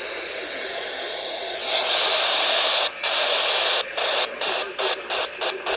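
Weather radio putting out steady static hiss with no voice. About two seconds in the hiss gets louder, then it keeps cutting out for a moment, the dropouts coming faster and faster towards the end.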